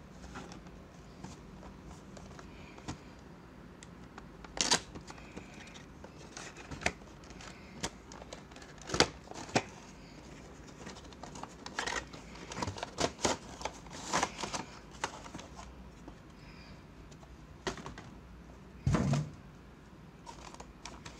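Cardboard action-figure box being opened by hand: scattered clicks, scrapes and rustles as its flaps are worked open and the plastic tray inside is slid out, with a dull knock near the end.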